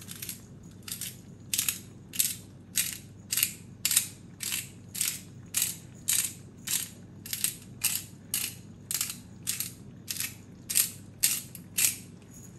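Hand-twisted pepper mill grinding peppercorns in about twenty short, evenly spaced grinding turns, a little under two a second, stopping just before the end.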